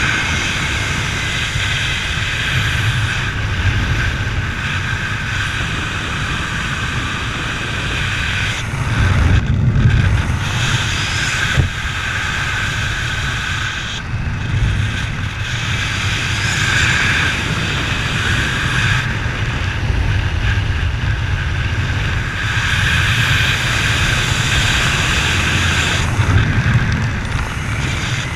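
A running vehicle: a steady engine rumble with wind noise, the higher hiss dipping briefly a few times.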